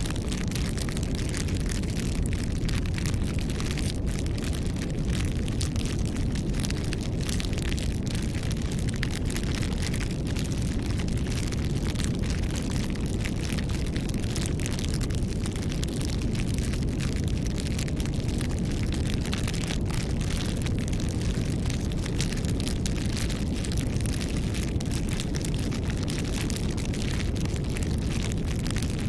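Campfire burning: frequent, irregular sharp crackles and pops of the fire over a steady low rumble.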